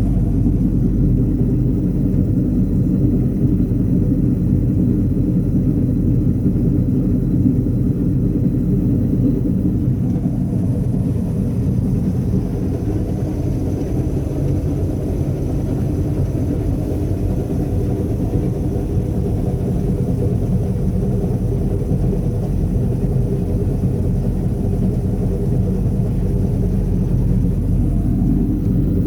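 Heavy harvest machinery running at a steady engine speed, a continuous low engine rumble that does not rise or fall.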